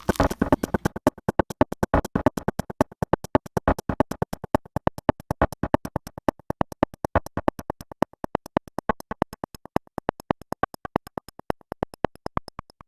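Electronic beat built on an air conditioner's strange clicking noise: fast, evenly spaced clicks at about seven a second, fuller in the first second, then a bare click rhythm that cuts off suddenly near the end.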